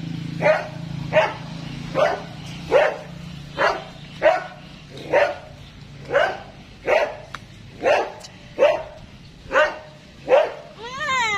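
Dog barking steadily and repetitively, one short bark a little more often than once a second.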